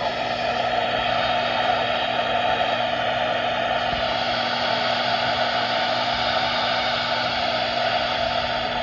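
Steady radio static hiss from a weather radio receiver on a weak NOAA Weather Radio signal, with a faint low hum under it.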